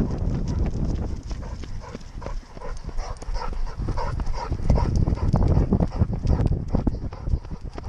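A running weimaraner's quick footfalls and the jostling knocks of the camera carried on the dog, coming as a fast, uneven patter of thuds with a short lull about two and a half seconds in.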